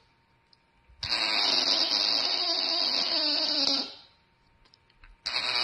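Bulldog vocalizing in a drawn-out, wavering moan that rises and falls in pitch, starting about a second in and lasting about three seconds, then starting again near the end.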